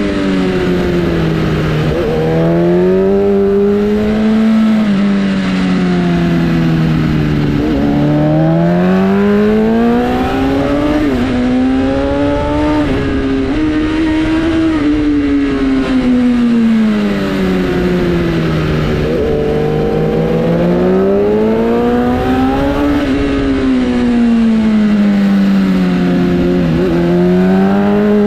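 Sportbike engine under load, its pitch rising and falling over and over in long, smooth sweeps of a few seconds each, with brief dips in between.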